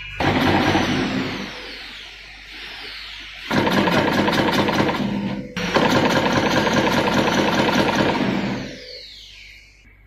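Automatic flat-cable cutting, stripping and crimping machine running: a fast clatter of repeated strokes in three loud spells with short gaps between, dying away near the end.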